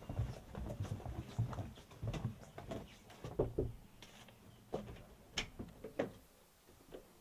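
Footsteps on wooden decking, a run of low thumps two or three a second, followed by a couple of sharp clicks of a door being handled.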